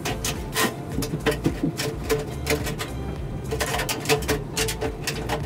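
Tin snips cutting through a sheet-metal HVAC duct: a quick, uneven run of sharp metallic snips and crunches, about three a second.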